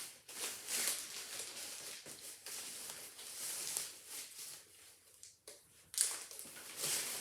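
Plastic packaging rustling and crinkling in irregular bursts as a package is opened and handled, with louder bursts about a second in and again near the end.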